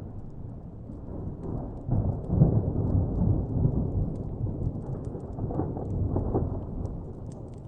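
Distant rolling thunder: a low rumble swells about two seconds in, rolls on for several seconds and eases off near the end. Faint crackles from a wood fire tick through it.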